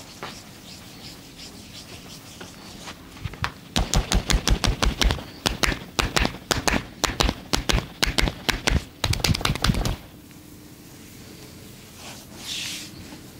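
Fast percussive massage strokes: hands striking the body in rapid runs of about six blows a second, starting a few seconds in and stopping suddenly after about six seconds. A short hiss follows near the end.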